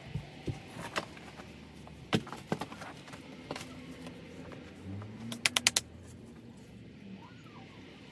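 Scattered knocks and clicks of someone working by hand in a crawl space, handling tools and debris, with a quick run of about five sharp clicks about five and a half seconds in.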